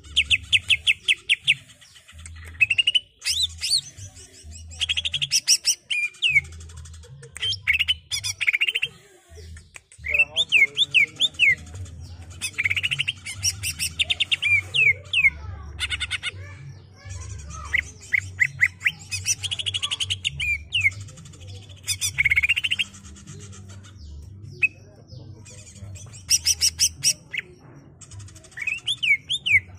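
Caged green leafbird (cucak ijo) singing in fast rolling runs of sharp chirps and falling whistles. The phrases last a second or two, with short pauses between them.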